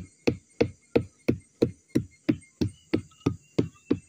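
A mallet beating the flower stalk of a sugar (aren) palm in a steady rhythm, about three dull knocks a second. This is the even all-round pounding that brings the stalk on to give palm sap (nira) for tapping.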